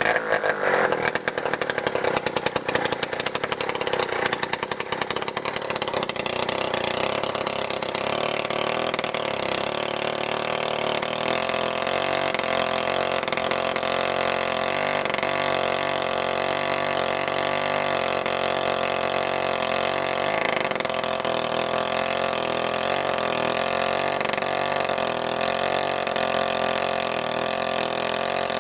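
Two-stroke Druzhba chainsaw engine driving a home-made winch, running unevenly for the first few seconds and then settling into a steady run.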